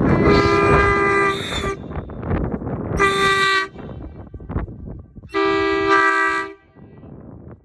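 Hadley H00910CA "Bully" truck horn sounded in three blasts, a long one, a short one and a medium one, each a steady two-note chord.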